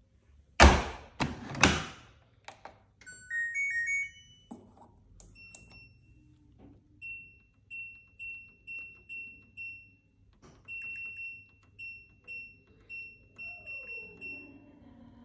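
LG front-loading washing machine: its door thuds shut with a few loud knocks about half a second in. The power-on chime then plays a short rising tune, followed by a string of short high beeps, about two a second, as the control-panel buttons are pressed to set the cycle and its options.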